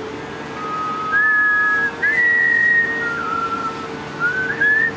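A person whistling by mouth to call a dog: a string of long held notes, sliding up and down between them, starting about half a second in, over a faint steady hum.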